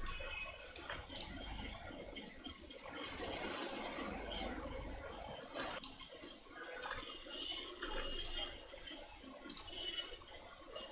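Scattered computer mouse clicks, with a quick run of clicks about three seconds in, over faint background hiss and hum.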